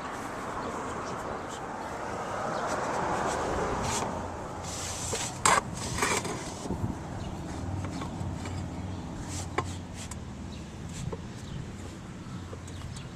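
Plastic flanges and rubber strip of a catch-basin filter insert being handled during assembly: a few sharp knocks and clicks, the loudest about five and a half seconds in, over a steady background rumble.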